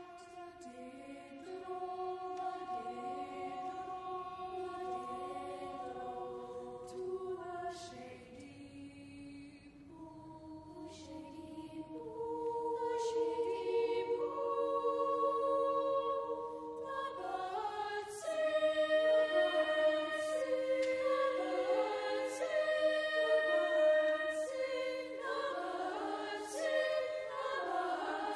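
Boys' choir singing long sustained notes in parts. It starts softly and swells louder about halfway through, then again about two thirds of the way in.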